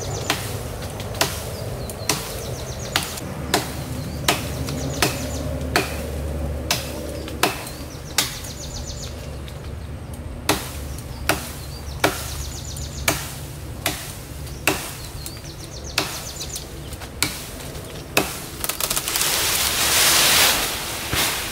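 Machete chopping into a thick lychee branch, a steady run of sharp strikes about one a second. Near the end the cut branch gives way and comes down through the leaves in a loud rustling crash.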